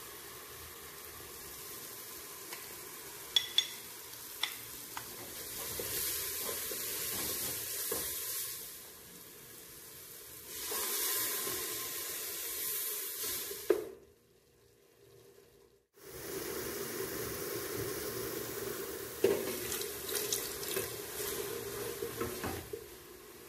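Onion and spice masala sizzling in a pressure cooker, with a few sharp clicks and scrapes of a wooden spoon against the pot as it is stirred. The sizzle drops out for about two seconds around two-thirds of the way in, then resumes.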